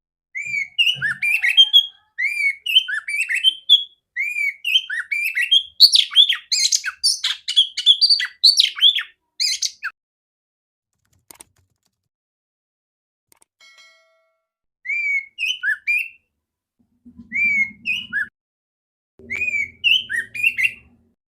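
Female Oriental magpie-robin calling in a big, clear voice: quick runs of short, sliding whistled notes, a long unbroken phrase and then, after a pause, three shorter phrases.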